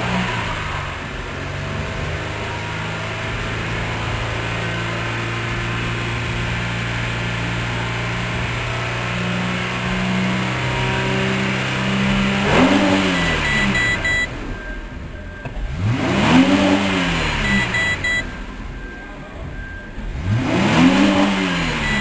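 2002 Holden Commodore's 3.8-litre V6 free-revving while stationary: held steady at raised revs for about twelve seconds, then revved three times, each rev climbing and falling back within about two seconds.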